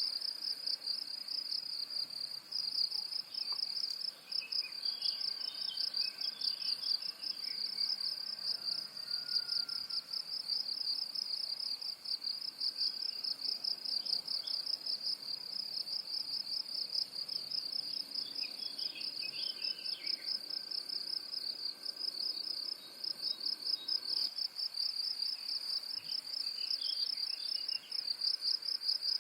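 Insects chirping without a break in a fast, even pulsing trill, with three short bouts of faint bird chirps behind them.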